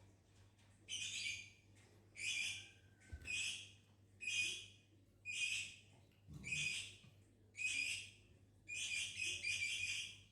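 Lovebird giving short, shrill chattering calls, eight in a row about a second apart, the last one drawn out longer.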